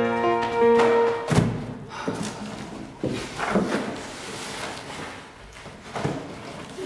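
Piano music breaks off about a second in on a heavy thud; a rushing noise follows, broken by several more thuds.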